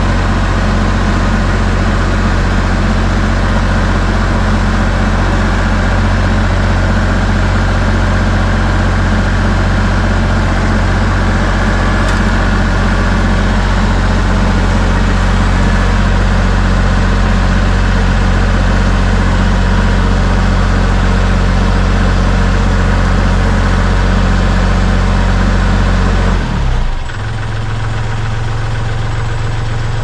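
Kubota L3301 tractor's three-cylinder diesel engine running steadily as the tractor moves in on its pallet forks. Near the end the engine note drops to a lower, quieter sound.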